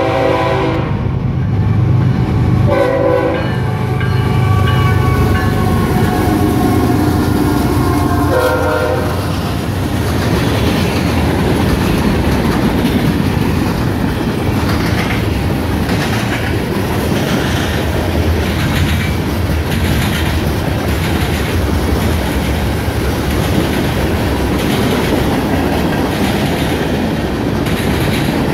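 A CSX freight train passing close by. The locomotive's air horn sounds two short blasts, about 3 s and 8 s in, over the low hum of its diesel engine. Then a long string of freight cars rolls past with a steady rhythmic clatter of wheels over the rail joints.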